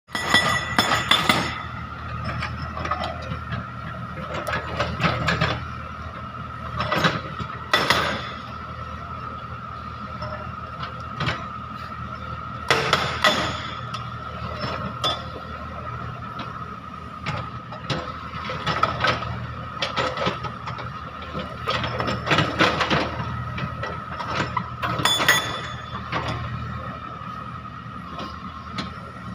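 Wheel excavator with a hydraulic breaker: the engine runs with a steady hum and a high whine, and the breaker hammers and clanks in irregular bursts every few seconds.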